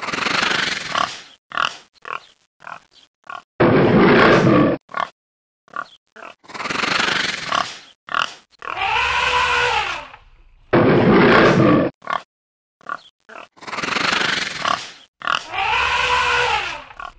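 Cartoon animal sound effects: rough pig-like grunts and growls alternating with a drawn-out call that rises and falls in pitch. The sequence repeats, so the pitched call is heard twice, each one about a second and a half long.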